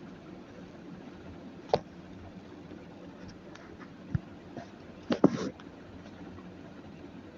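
Steady low room hiss with a sharp click a little under two seconds in, a low knock about four seconds in, and a quick cluster of clicks and knocks just after five seconds.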